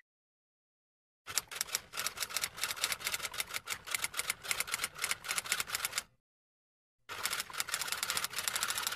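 Rapid typing: fast runs of keystroke clicks that start about a second in, stop for about a second past the middle, then start again.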